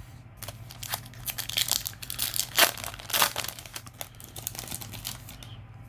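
Foil trading-card booster pack wrapper being crinkled and torn open: a run of irregular sharp crackles, loudest around the middle.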